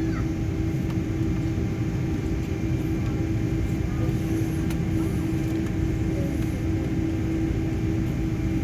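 Steady low rumble of a jet airliner's passenger cabin, with a constant droning hum, while the plane is held at the gate awaiting departure.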